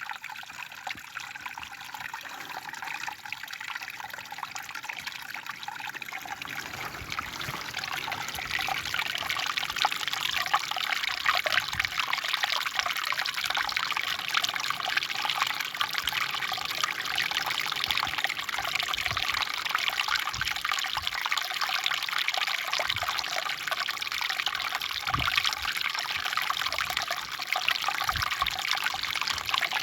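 Rain falling steadily, with water trickling and pattering; it gets heavier about eight seconds in.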